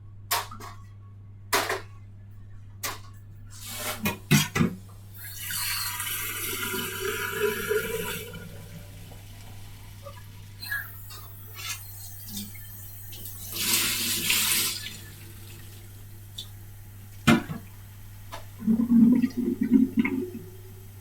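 Water rushing in two bursts of a few seconds each, with scattered clicks and knocks.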